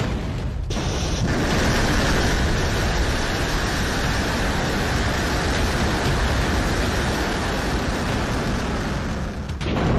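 Hwasong-17 intercontinental ballistic missile's liquid-fuel rocket engines at lift-off: a dense, steady rush of noise. The sound thins briefly just after the start and again near the end.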